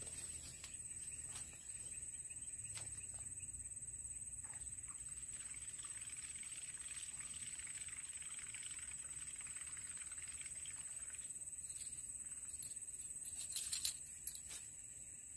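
Quiet outdoor ambience with a steady high-pitched insect drone. About two seconds before the end comes a short, louder burst of clicks and a whir as a baitcasting rod is swung and cast.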